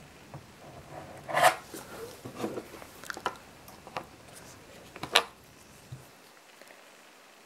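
Hands handling a leather football boot with screw-in studs: rustling and scattered clicks and knocks, the two loudest about a second and a half and about five seconds in.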